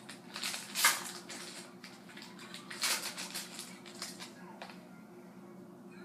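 Crinkling of a hockey-card pack wrapper and the cards inside being handled, in two bursts of crackly rustling, the first in about the first second and the second around three seconds in, then a few faint rustles.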